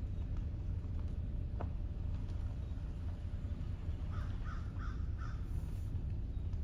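An animal calling four times in quick succession, short calls about three a second, over a steady low rumble.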